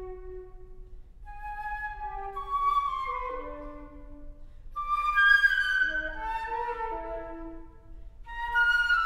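Solo concert flute playing an unaccompanied twelve-tone passage: held notes and short falling runs, swelling loudest about five seconds in and again near the end.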